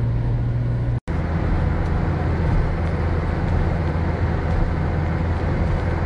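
Steady low rumble of a car's engine and tyres heard from inside the cabin while driving, with the sound cutting out for an instant about a second in.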